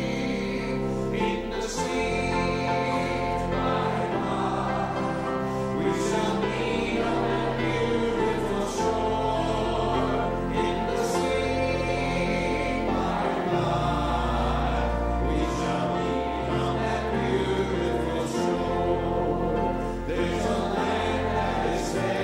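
Congregation singing a gospel hymn together with instrumental accompaniment, held notes and a steady bass line.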